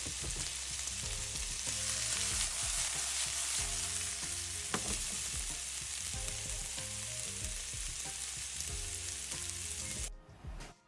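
Food sizzling and frying in hot oil in a skillet, a steady crackling hiss that cuts off abruptly about ten seconds in. Soft background music plays underneath.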